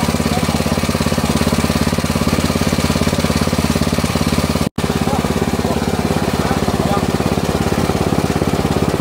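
Small electric stone grinding mill running steadily, grinding seeds into a paste that flows from its spout: a loud hum with a fast, even pulsing.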